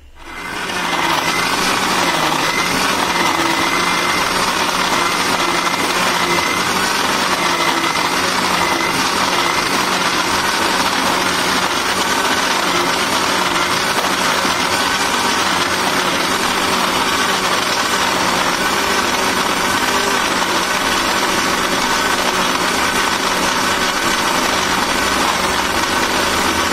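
Electric kitchen mixer grinder spinning up and running steadily at high speed, its blades churning fresh coconut pieces with water into coconut milk, then switched off at the end.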